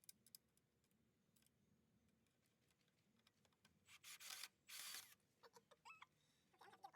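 Faint handling noises while a porch light fixture is put together: a few small clicks, then two short scraping rubs about four and five seconds in, followed by a few brief high chirps near the end.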